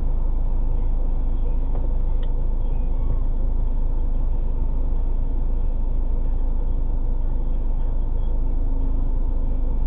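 A car engine idling while the car stands still, heard from inside the cabin as a steady low rumble with a faint even hum.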